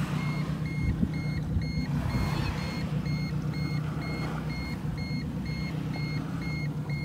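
Garmin Echo 551dv fishfinder's shallow-water alarm beeping steadily, about two short beeps a second, cutting off near the end. The alarm signals that the water under the boat has become shallow, reading 0.9 m. A steady low hum runs underneath.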